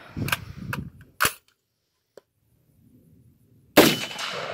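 A few sharp metallic clicks and a clack as the rifle is handled, then a single loud gunshot near the end from a 2.5-inch-barrel AR-15 pistol with an adjustable gas block that is being tuned so the gun cycles.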